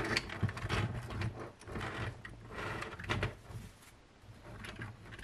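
Scattered plastic clicks and light scraping of a 3D-printed silk PLA articulated eagle's parts being handled, its wings being worked at their joints.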